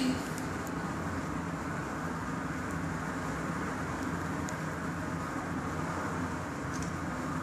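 Steady low rumble and hiss of background noise with a faint hum, and a few faint scattered clicks.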